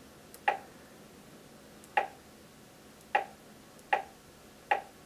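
Five short clicks, unevenly spaced about a second apart, as a stylus taps the touchscreen of a sewing and embroidery machine to move through its menus.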